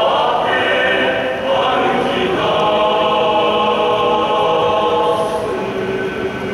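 Large men's choir singing in sustained chords, with a brief break about a second and a half in before the next phrase.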